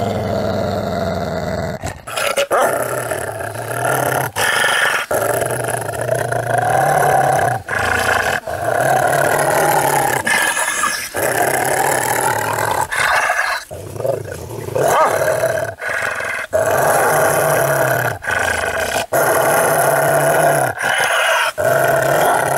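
A wolf growling and snarling in a long run of deep growls, each lasting a second or three, broken by short pauses.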